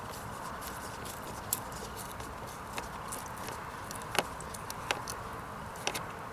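A few scattered, light clicks and taps of parts and a tool being handled and fitted back in place during reassembly, over a steady background hiss.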